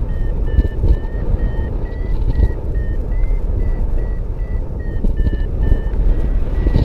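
Paragliding variometer beeping: a quick series of short electronic beeps whose pitch wavers slightly, the climb tone that signals the glider is rising in lift. Loud wind rush on the microphone underneath.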